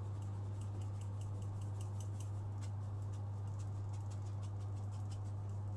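Cocoa powder and flour being sifted through a metal sieve into a bowl: quick, light, irregular ticks and patter as the sieve is shaken and tapped, over a steady low hum.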